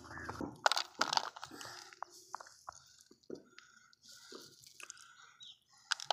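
Dry fish-feed pellets scooped by hand off a concrete floor and dropped into a plastic toy trailer: a string of short, irregular rattles and clatters, loudest about a second in.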